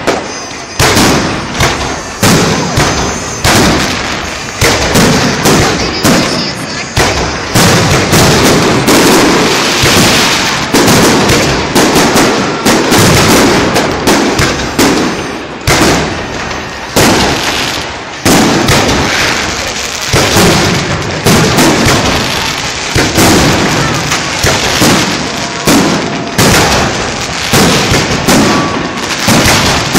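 Fireworks display: aerial shells bursting overhead in a near-continuous barrage of loud bangs, about one or two a second.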